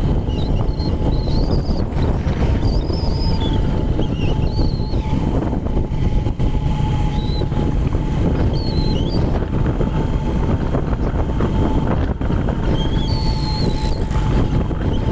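Wind rushing and buffeting on the microphone of a moving vehicle driving along a road, with a steady whine underneath. Short high wavering chirps come through now and then.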